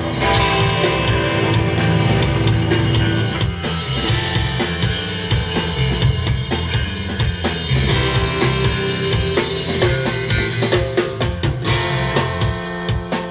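Live rock band playing: electric guitars, bass guitar and a drum kit, with steady drum hits throughout.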